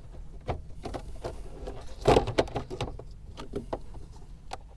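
Irregular small clicks and knocks of hand-handled plastic and metal parts, a fuse-slot test adapter being pushed into a car fuse box and its meter leads connected, with a louder clatter about two seconds in.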